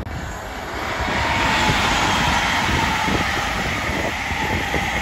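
EMR Class 222 Meridian diesel multiple unit passing at speed. It grows louder over the first second and a half as it draws level, then holds steady as the carriages rush past, a high whine over the rumble of wheels on rail.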